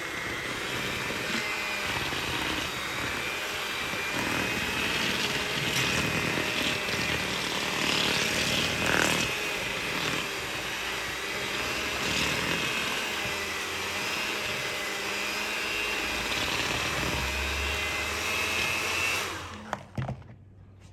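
Electric hand mixer running steadily at a constant pitch, its beaters churning a thick cream cheese and peanut butter pie filling in a bowl. The motor cuts off about a second before the end, followed by two sharp knocks.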